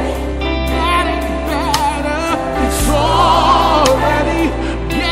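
A gospel choir sings a praise song with a band behind it: voices with vibrato over a steady bass, with drum hits now and then.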